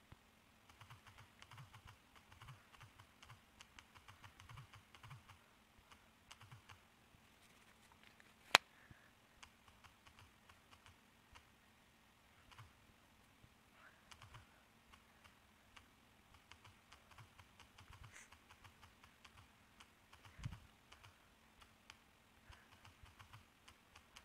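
Faint, rapid tapping of typing on a smartphone's on-screen keyboard, coming in spells with short pauses. There is one sharp, loud click about eight seconds in and a low thump about twenty seconds in.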